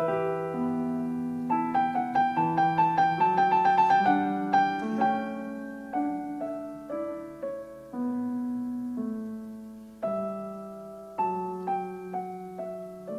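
Solo piano music: a quick run of rapid notes from about two to five seconds in, then slower, spaced single notes and chords, each ringing and fading.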